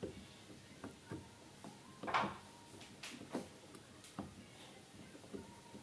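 Scattered light clicks and knocks of things being handled, with one louder scrape about two seconds in.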